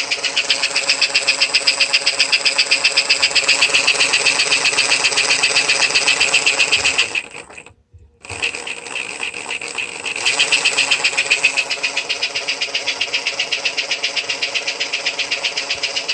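American Flyer smoke-in-tender unit running: its small electric motor drives the bellows with a rapid, even pulsing whir. About seven seconds in it cuts out for about a second, then starts up again.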